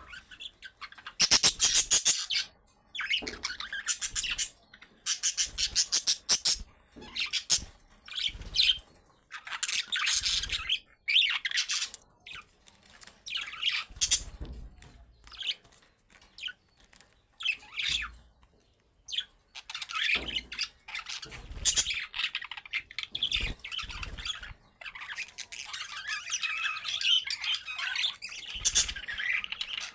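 Budgerigars chattering, chirping and squawking in quick bursts of a second or two, with short pauses between.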